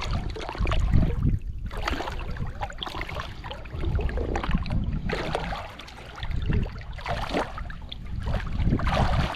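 Water sloshing and splashing against a small pontoon boat in irregular surges every two to three seconds, over a low rumble of wind on the microphone.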